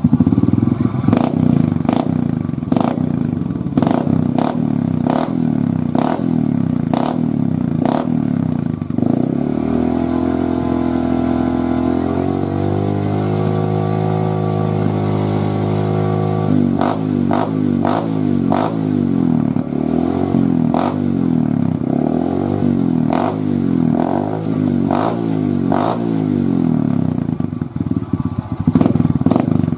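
Yamaha Jupiter's single-cylinder four-stroke engine running through a hollowed-out ('bobok') exhaust muffler. It idles with sharp pops every half second or so, is revved up and held for several seconds about nine seconds in, then is blipped up and down about once a second.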